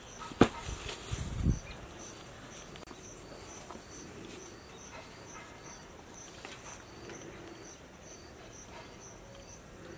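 A cricket chirping evenly, about two high chirps a second, over faint outdoor ambience. A sharp click comes just under half a second in, then a dull thump at about a second and a half.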